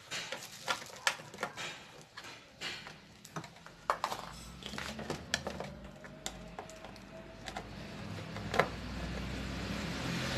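Irregular clicks and small knocks of hands working the plastic timer housing and pushing wire connectors onto a washing machine timer. A sharp knock about eight and a half seconds in, then a steady low hum comes in and holds.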